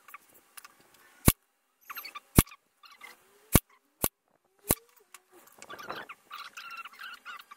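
Ryobi Airstrike cordless nailer firing five sharp shots, driving nails into a plywood joint. The first three come about a second apart, the last ones closer together.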